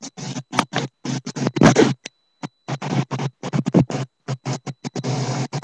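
Choppy, stuttering background noise, broken into rapid fragments by audio dropouts in the recording, with two louder swells about one and a half and three and a half seconds in.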